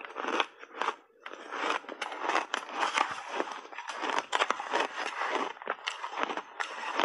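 Close-miked crunching and chewing of a big mouthful of shaved ice coated in milk powder: a dense, continuous run of small crackles and crunches, easing briefly about a second in.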